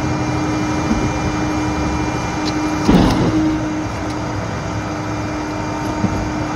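Steady drone of an idling truck engine with a constant hum. About three seconds in, cardboard boxes clatter and scrape as they are grabbed and lifted.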